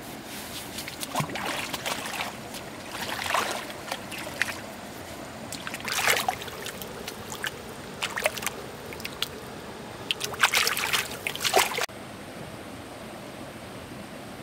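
Bare feet splashing and swishing in shallow stream water, in irregular bursts of splashes that stop abruptly about twelve seconds in, leaving a steady hush of flowing water.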